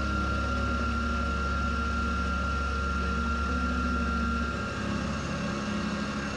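Benchtop milling machine running a 50 mm carbide face mill across a 6 mm plate to face it. There is a steady motor whine over a low hum, and the deep rumble eases off about two-thirds of the way through.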